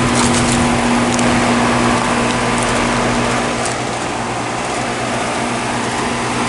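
2010 EverRest heat pump outdoor unit running in cooling mode: its compressor gives a steady hum under the even rush of the condenser fan.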